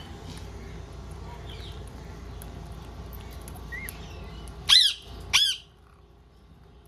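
Green parrot giving two loud squawks about half a second apart, near the end, after a few soft chirps.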